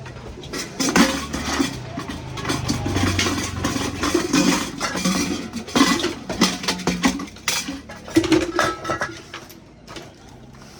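Irregular metallic clinks, taps and knocks of tools and small parts being handled during a repair.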